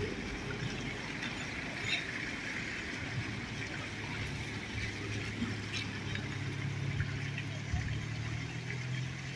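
Street traffic, with a car engine's low steady hum that comes up about four seconds in.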